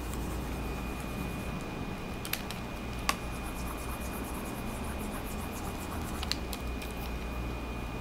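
Wacom Cintiq Companion 2 cooling fan running with a steady hiss and a thin high whine. A stylus scratches and taps on the tablet's screen, with three sharp clicks, the loudest about three seconds in.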